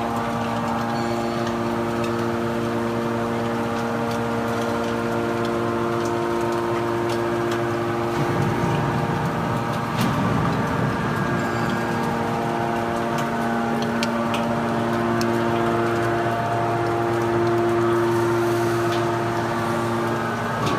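Hydraulic scrap-metal baler running: the motor-driven hydraulic pump holds a steady whine with several overtones. About eight seconds in, a rougher, louder rushing rises for about three seconds. Light clicks are scattered throughout.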